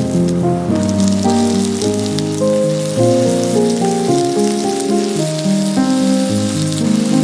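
Instrumental background music with a melody of held notes, over the steady sizzle of chopped onions and potatoes frying in oil in a nonstick pan.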